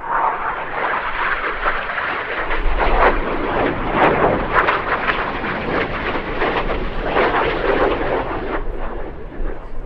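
BAE Hawk T1 jets of the Red Arrows passing low over the crowd: loud, rushing jet engine noise that swells sharply at the start and eases off near the end.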